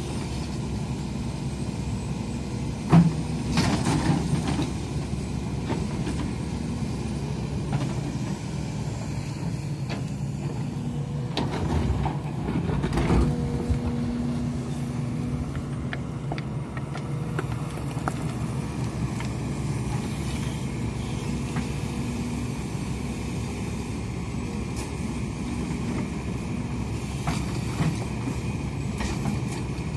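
Hidromek 300 tracked excavator running steadily as it digs and dumps soil. A sharp knock comes about three seconds in, and a louder stretch of knocks and scraping comes around the middle.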